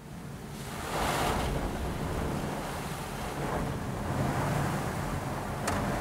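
Automatic car wash heard from inside the car: a steady rush of water spray over the body and windows, with a low rumble underneath. It fades in and reaches full strength about a second in, with a couple of sharp ticks near the end.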